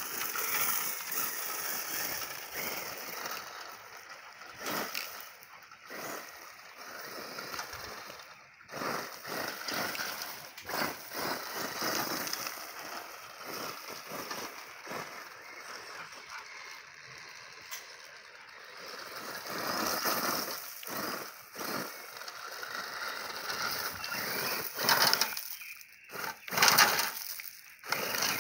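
Small radio-controlled buggy with a VW Beetle body driving on loose gravel, its tyres crunching and throwing stones in uneven surges, loudest in a few sharp bursts near the end.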